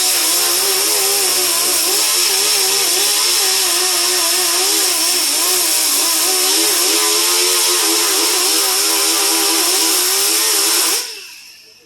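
Power tool running steadily on the repair, its pitch wavering as it is worked under load, with a strong high hiss; it is switched off about eleven seconds in and winds down.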